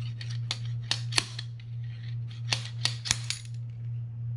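Slide hammer with a bearing puller clacking metal on metal in a series of sharp, irregular strikes, pulling the bad pinion bearing out of a Shimano TLD 50 reel frame.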